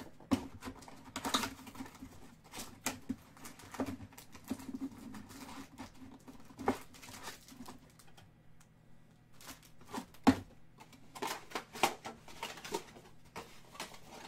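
Foil-wrapped trading-card packs and their cardboard box being handled: scattered taps, clicks and crinkling as the packs are pulled out of the box and set down in a stack. One sharper knock comes about ten seconds in, followed by a quick run of taps.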